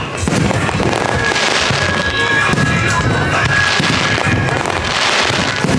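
Fireworks going off in quick succession, sharp bangs with crackling, hissing swells every second or two, over the show's accompanying music.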